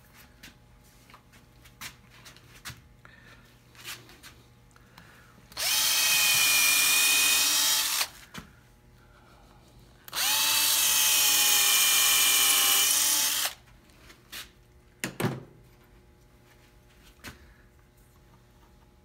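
Makita drill boring pilot holes for nails into a glued-up block of basswood and mahogany: two runs of about two and a half and three seconds, each a steady whine that spins up and winds down. Small clicks from handling, and a sharp knock a little after the second run.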